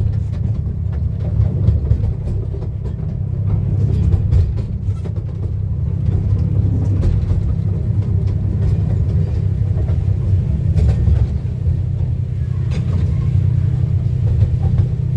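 Steady low rumble of a 15-inch gauge miniature railway carriage rolling along the track, heard from inside the enclosed carriage, with scattered clicks and knocks throughout.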